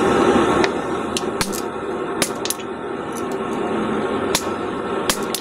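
Hand hammer striking a top tool set on a red-hot steel hammer head: an irregular run of sharp metallic knocks, about a dozen, over a steady rushing noise.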